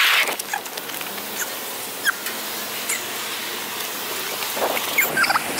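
Skateboard wheels rolling over pavement with a steady hiss, and a few sharp clicks and clacks of the board, one about two seconds in and a louder one about five seconds in.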